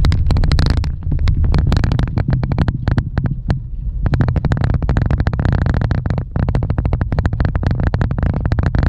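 A vehicle driving on a gravel road, heard from inside the cabin. A steady low rumble runs under dense, rapid, irregular clicking and rattling from the rough surface.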